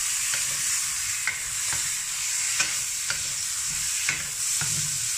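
Prawns sizzling in hot oil in a wok while a wooden spatula stir-fries them. The spatula scrapes and knocks against the wok every half second to a second over the steady sizzle.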